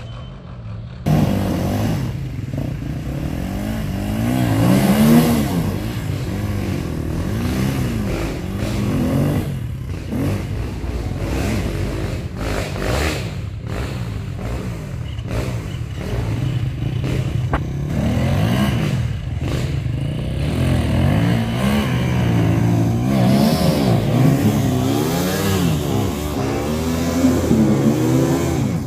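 Dirt bike engine revving hard and easing off over and over, its pitch rising and falling in waves, as the bike is worked under load up a steep, muddy climb, with some clatter. The engine comes in loud about a second in.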